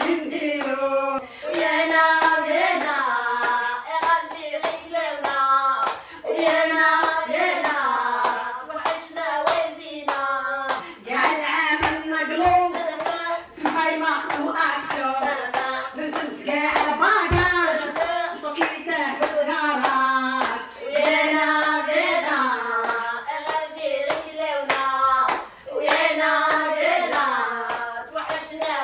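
A woman singing a melody, with hands clapping along in a steady rhythm.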